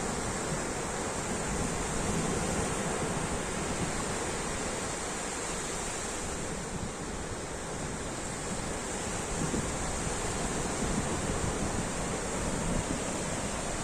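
Ocean surf: a continuous rush of breaking waves, swelling and easing slowly.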